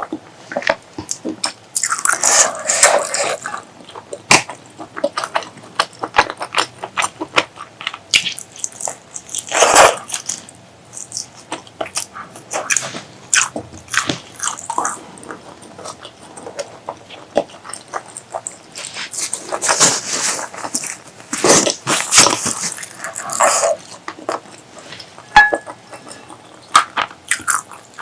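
Close-miked eating: chewing and biting with many sharp, wet mouth clicks, and a few louder, longer bursts of about a second each.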